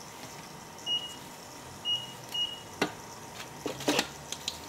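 Three short electronic beeps from a CNC mill's control panel as the go button is pressed to start the cylinder boring cycle, followed by several sharp clicks, over a faint steady machine hum.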